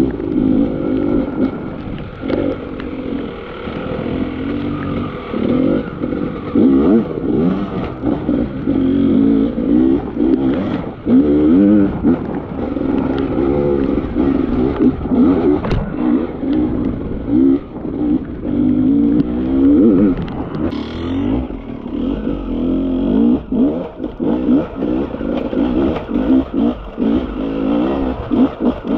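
Beta enduro dirt bike engine revving up and down constantly under throttle while riding over rocky ground, with frequent clattering knocks from rocks hitting the bike.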